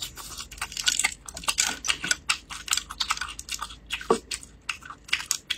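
Close-miked chewing of a mouthful of noodles: a quick run of small mouth clicks, several a second.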